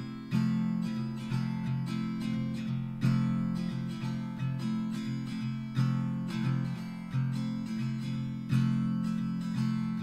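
Calm background music led by a strummed acoustic guitar, its chords struck and left to ring and fade.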